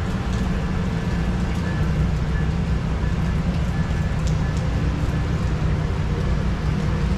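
Amtrak Superliner passenger train rolling slowly out of the station in heavy rain: a steady low rumble under the hiss of the rain.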